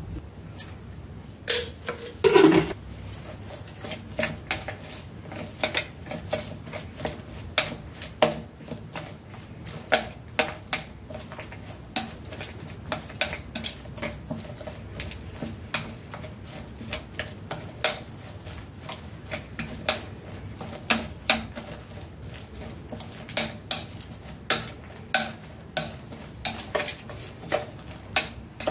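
Wooden chopsticks stirring raw pig lung pieces with seasonings in a dish, with irregular clicks and taps of the chopsticks against the dish. About two seconds in there is one brief, louder sound that falls in pitch.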